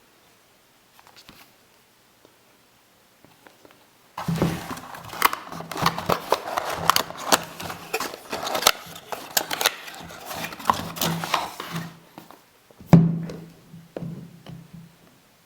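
Close handling of the phone and its packaging: a dense run of clicks, taps and crinkling starting about four seconds in, pausing briefly near the end, over a steady low hum.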